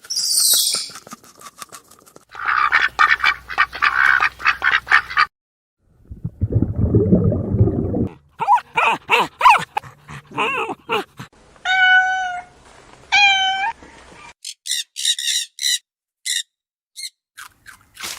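A run of different animal calls one after another: high chirps, a rapid chattering, a low growl, then a series of pitched cries with two longer held ones, and short high chirps near the end.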